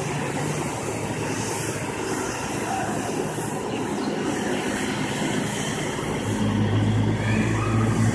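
Boeing 777-300ER's twin GE90 turbofans running at taxi power as the airliner rolls along the taxiway: a steady jet rush. A deeper steady hum joins in about six and a half seconds in.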